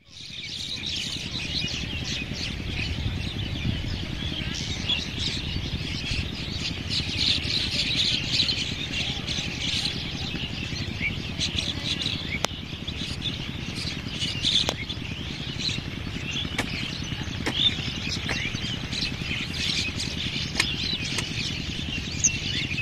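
Many small birds chirping and twittering in a dense chorus over a low steady rumble, fading in at the start.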